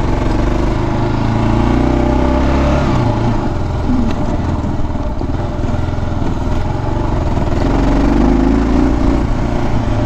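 Motorcycle engine running while riding off-road on a dirt trail, its note changing about three seconds in.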